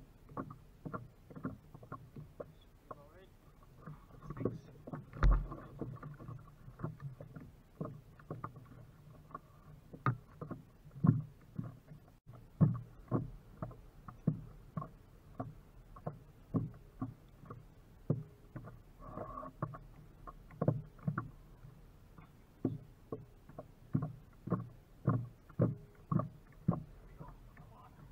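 Small waves lapping and slapping against the hull of a Vibe Maverick paddleboard in short, irregular knocks, one or two a second, with a louder thump against the board about five seconds in.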